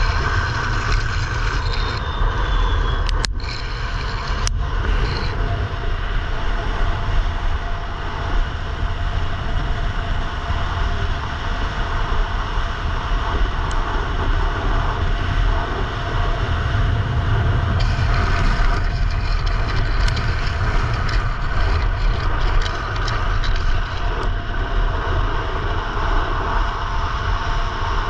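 Wind buffeting a helmet-mounted camera and downhill skateboard wheels rolling on asphalt at racing speed, a steady loud rush with deep rumble. Two sharp clicks a few seconds in.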